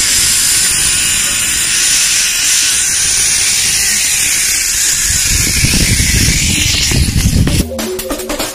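Steady loud hissing rush of a zipline ride: the trolley pulley running along the cable, with wind rumbling on the microphone and growing heavier after about five seconds. Near the end it cuts to music with a beat.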